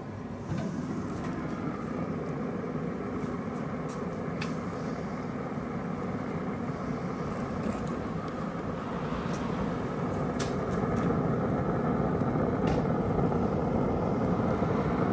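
Steady rushing noise that gets louder about eleven seconds in, with a few light clicks scattered through it as the Traeger Ranger pellet grill's lid is unlatched and lifted.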